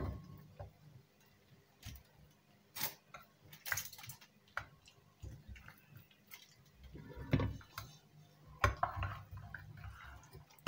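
Aluminium foil over a baking dish crinkling and clicking lightly now and then, over a faint low hum.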